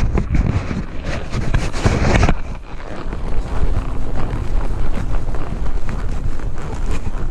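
Wind buffeting the microphone, a loud low rumble that is harsher for the first two seconds or so, then duller.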